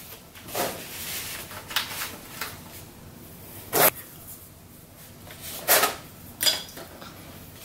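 Several short rustling and scraping handling noises, the loudest about four seconds in: a gaming mouse's cable being drawn along and the mouse sliding a little on the tabletop as its USB plug is connected.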